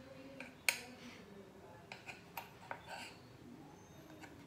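Kitchen knife clicking against a stone rolling board while cutting rolled dough into strips: a few sharp clicks, the loudest about two-thirds of a second in, then three smaller ones around two to three seconds in.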